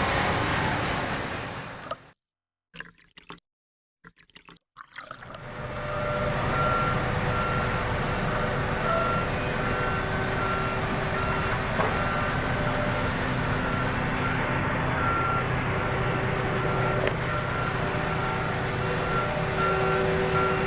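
A vehicle engine running steadily, with a reversing alarm beeping over and over. The sound cuts out for about three seconds, starting about two seconds in.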